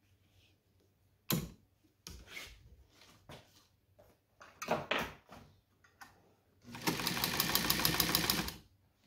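A vintage New Home SKY sewing machine stitching through leather in one run of about two seconds near the end, a rapid even chatter of needle strokes. Before it, a few separate knocks and clicks as the leather is handled and set under the presser foot.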